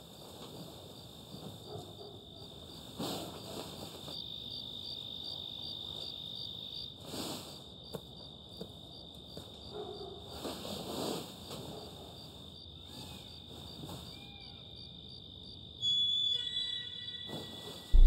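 Crickets chirping steadily, about four chirps a second, as night ambience, with the rustle of bedding now and then. Near the end, a louder shrill tone sounds for about a second and a half.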